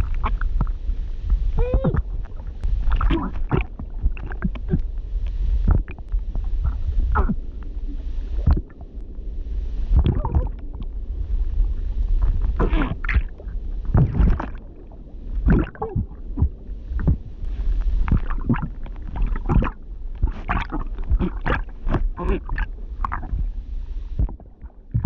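A woman's underwater drowning performance: muffled glubs and strained vocal sounds broken up by many short bursts of bubbling and gurgling over a steady low water rumble, dying away near the end.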